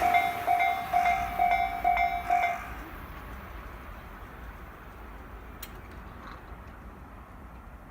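Japanese railway level crossing alarm ringing in quick repeated clangs, about three a second, while the noise of a passing Tobu Tojo Line train fades away. The alarm stops about two and a half seconds in, leaving a faint steady background.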